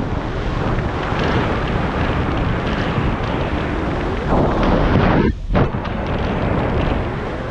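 Loud wind rushing and buffeting over a skydiver's helmet-camera microphone during flight under an open parachute canopy. It drops away briefly about five seconds in.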